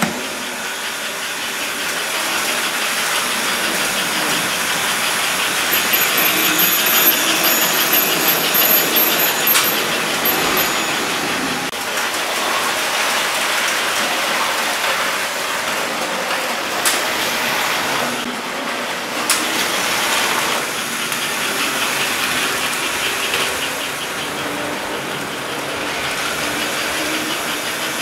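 American Flyer toy trains running on the layout: a steady whir of locomotive motors and wheels rolling on the track, with a few sharp clicks along the way.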